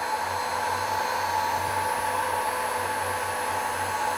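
Electric heat gun running steadily, its fan blowing hot air with a constant hiss and a steady whine, as it shrinks heat-shrink tubing onto a soldered cable lug.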